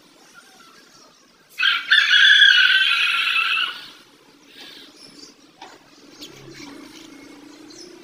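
Pet budgerigars chirping, with one loud harsh call of about two seconds starting about one and a half seconds in.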